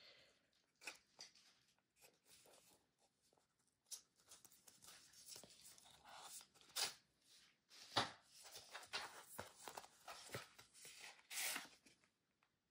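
Faint paper rustling and short scrapes of a utility knife slitting open a small paper envelope, then a card slid out near the end.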